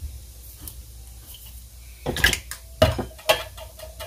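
A metal spoon knocking and scraping inside a tin can as canned tomatoes are spooned out. A few sharp knocks start about two seconds in, followed by quicker, lighter taps with a faint ring.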